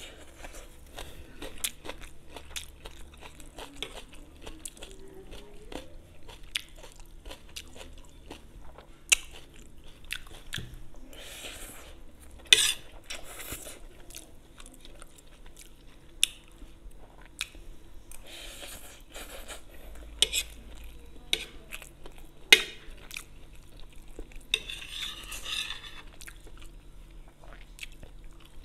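Close-miked chewing of chow mein noodles, with wet mouth sounds throughout. Sharp clicks of a metal fork against the plate come every few seconds.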